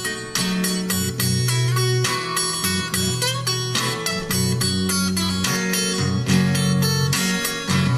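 Capoed acoustic guitar picked in a blues pattern: a steady run of plucked notes over a low bass line, with no singing.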